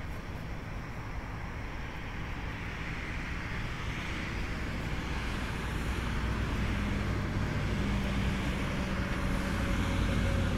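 Distant jet engine rumble from an Airbus A319 on the runway, building gradually louder for takeoff, with a steady low hum coming in about halfway through.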